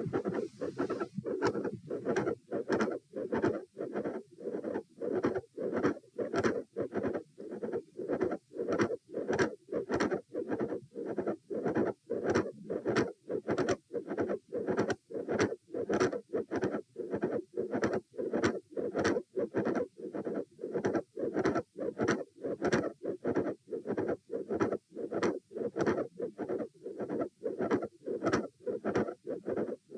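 Human heart heard through a stethoscope, beating in a steady, regular rhythm of short, dull lub-dub thumps. The uploader identifies these heart sounds as including a mid-systolic click and a fixed split second heart sound (S2).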